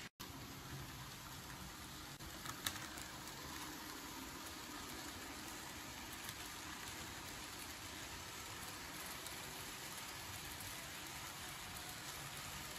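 Steady hiss-like running noise of a model train rolling along the layout track, with a single sharp click about two and a half seconds in.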